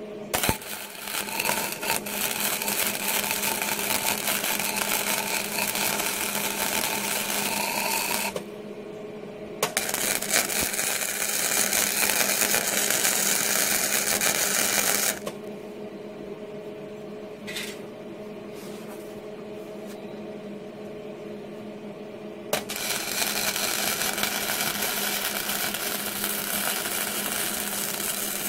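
Flux-core MIG welding arc from a Hobart Handler 120 welder, sounding in three runs: about eight seconds, then after a short pause about five seconds, then after a longer pause a third that starts about three-quarters of the way through. A steady low hum continues under the welds and through the pauses.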